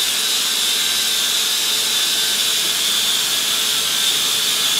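DeWalt 20-volt cordless drill spinning a buffing pad against a painted part, a steady high whine over a hiss of the pad rubbing in cutting compound. This is the compounding stage, which fills the scratches left by wet sanding.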